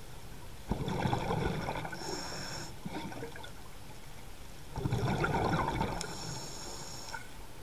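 Scuba regulator breathing underwater: two exhalations about four seconds apart, each a burst of bubbles lasting about two seconds and ending in a thin high hiss, over a steady low background hiss.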